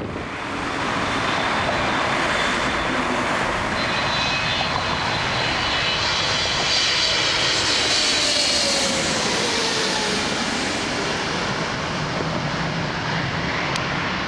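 Emirates Airbus A380 on approach, its four jet engines making a steady rush with a high fan whine; a tone in the middle falls in pitch as it passes.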